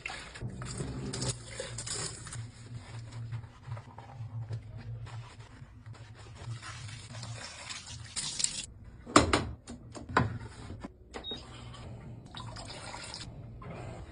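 Water running and splashing over a steady low hum, with a few sharp knocks a little past halfway.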